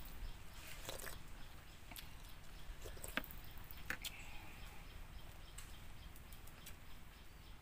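Faint sounds of a person eating: chewing, with a few sharp clicks, over a low steady rumble.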